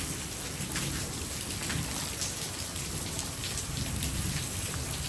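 Steady pouring rain, with many scattered drops pattering on nearby surfaces.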